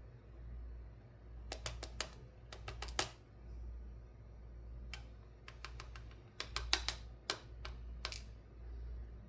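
Sharp little metal clicks and taps in three quick clusters: small tools and parts being handled on a brass rim cylinder lock as it is taken apart.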